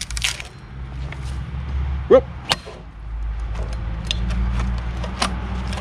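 Machete blade being worked loose from the hard oak board it is stuck in: the wood gives one short creak about two seconds in, followed by a sharp crack, then a few light knocks.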